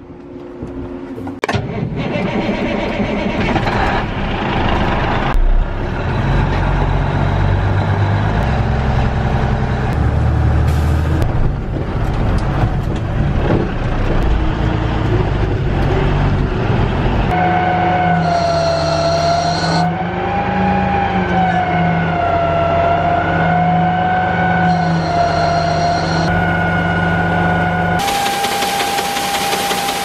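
Farm machinery engines running, changing abruptly several times. From a bit past halfway a steady high whine, wavering slightly in pitch, runs over the engine rumble.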